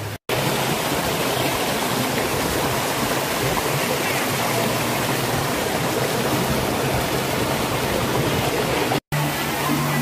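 Mountain stream rushing over boulders, a steady loud rush of water, broken twice by a sudden brief silence: once just after the start and once near the end.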